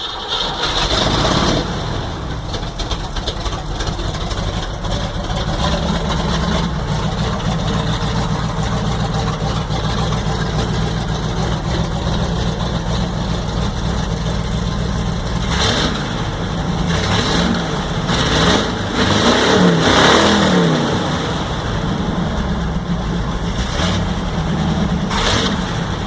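Ford 302 V8 in a 1946 Ford running at a rumbling idle. About two-thirds of the way through it is revved up and back down a couple of times.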